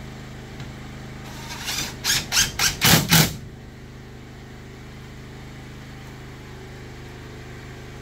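Cordless drill driving a screw into a drywall sheet in about six short bursts over a second and a half, getting louder toward the end. A steady low hum runs underneath.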